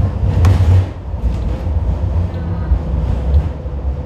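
Kawasaki light rail car running along the track, heard from inside the trailer car: a steady low rumble with a constant hum, and one sharp knock about half a second in.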